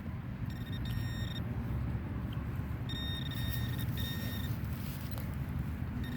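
Metal detector giving short, steady high-pitched beeps, several tones of about half a second to a second each as it passes over a target, over a steady low rumble.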